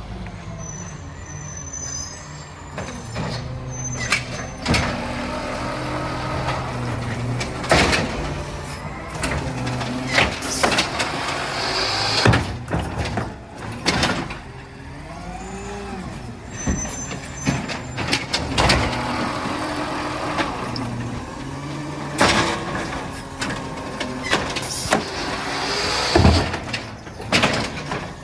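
Garbage truck at a curbside pickup: its diesel engine runs and revs up and down while repeated clanks and bangs ring out, with a couple of air-brake hisses.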